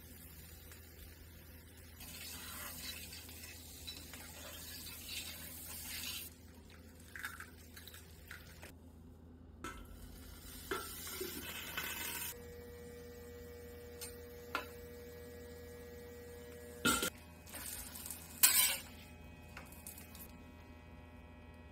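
Stainless-steel cookware on an electric flat-top griddle: a steady electrical hum under egg sizzling in a ring, with a metal dome lid and spatula clinking against the griddle. Two sharp metal knocks near the end are the loudest sounds.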